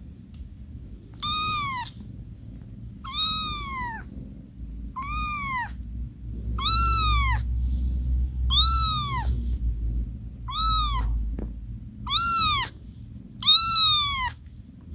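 A newborn tuxedo kitten mewing: eight short, high-pitched mews about every one and a half to two seconds, each dropping in pitch at its end.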